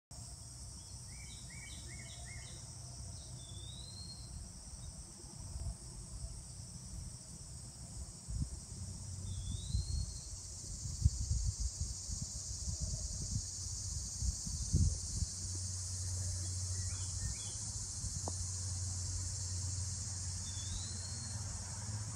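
A steady high-pitched insect chorus, with a bird calling over it: a quick run of short chirps near the start and a short upward-curling whistle three times. Low rumbles come and go in the middle, and a low steady hum sets in during the last third.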